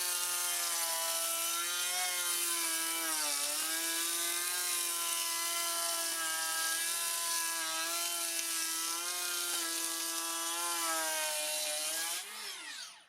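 Makita 40V XGT cordless planer cutting a full-depth 4 mm pass along a timber board: a steady high motor whine over a wide hiss of cutting, its pitch sagging slightly as the load changes. About twelve seconds in it is switched off and winds down to a stop.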